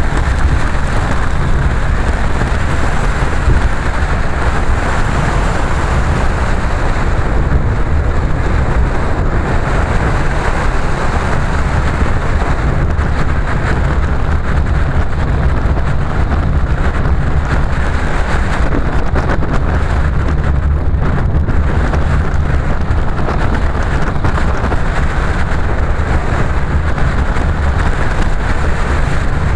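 A car driving at steady speed, heard from on board: a continuous low rumble of engine and road noise, heaviest in the deep bass.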